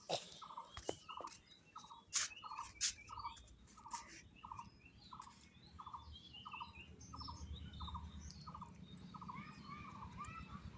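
A bird calling in a steady series of short, buzzy notes, about two a second, with a few higher chirps mixed in. A few sharp clicks in the first three seconds, and a low hum in the second half.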